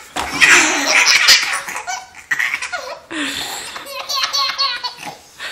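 A nine-month-old baby laughing hard at being tickled, in two long bouts of giggling with a short pause between them.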